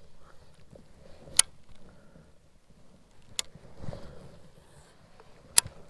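Three sharp clicks about two seconds apart from a fishing rod and reel being handled, over a faint low rumble of movement in the kayak.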